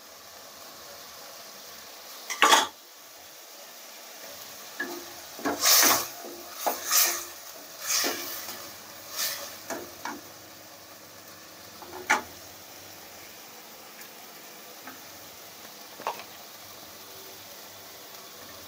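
Chopped tomatoes sizzling gently in onion masala in a kadai, with a spatula scraping and knocking against the pan as it is stirred. The knocks come in a cluster between about two and twelve seconds in, then once more near the end.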